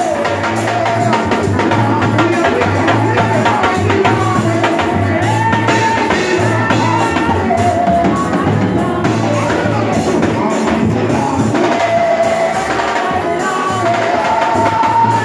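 Gospel song: voices singing a wavering melody over a drum kit, tambourine and repeating low bass notes, at a steady beat.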